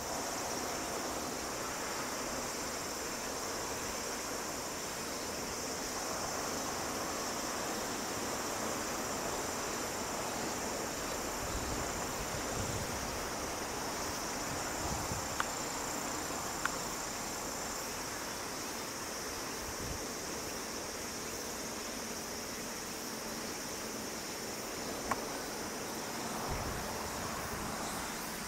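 Steady chorus of insects, a continuous high trilling, over an even background hiss, with a few faint clicks.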